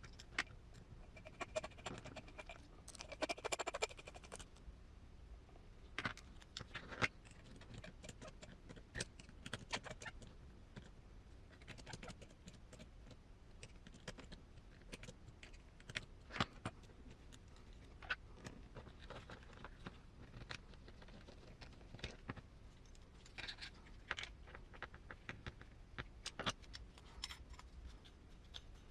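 Small hard parts and hand tools clicking and tapping as an RC transmission is assembled by hand, with scattered separate clicks and a brief busier patch of clattering about two to four seconds in.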